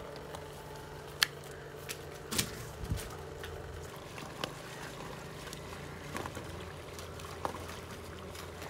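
Wading through shallow muddy pond water, with a few sharp splashes and knocks, over a steady low motor hum.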